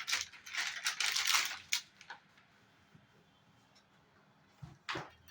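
Handling noise from computer parts: about two seconds of rustling and scraping, then a quiet spell and a couple of sharp clicks near the end.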